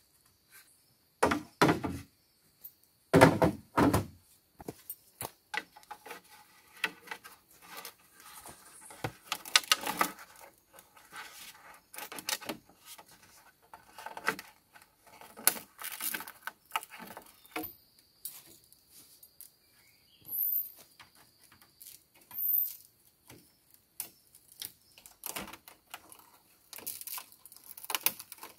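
Hollow bamboo poles knocking and thudding together as they are set into a shelter frame, with a few heavy thuds in the first few seconds. After that come lighter irregular clicks, taps and scrapes as a bamboo crossbar is handled and fastened overhead.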